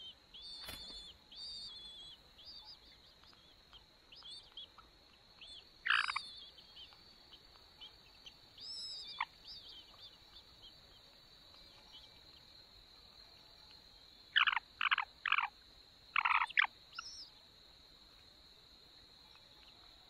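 Cuckoo chick begging in the nest: a run of thin, repeated high notes, then loud harsh calls, with a quick series of four about three quarters of the way through. A steady high insect drone runs underneath.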